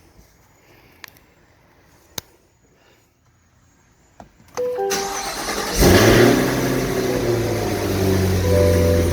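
A few faint clicks, then a supercharged car engine cranks and starts about five seconds in, flaring up loudly for a moment before settling into a steady idle with the supercharger whining over it.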